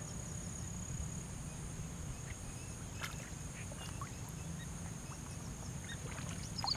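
Outdoor ambience: a steady low rumble with a steady high whine, a few faint scattered chirps and clicks, and a brief louder chirp near the end.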